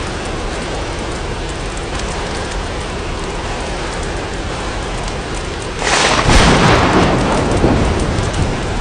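Steady rain falling on glass, with a sudden loud clap of thunder about six seconds in that rumbles and fades over a couple of seconds.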